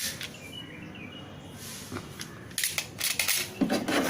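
Tools being handled in a plastic tool-kit case: scattered clicks and light rattles, with a louder rustle near the end.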